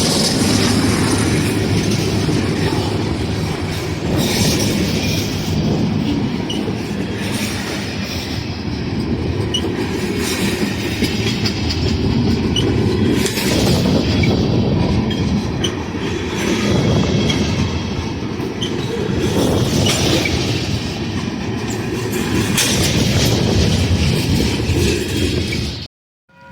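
Freight train rolling past, its steel wheels clattering over the rail joints with brief high flange squeals, the loud steady rumble cutting off abruptly just before the end.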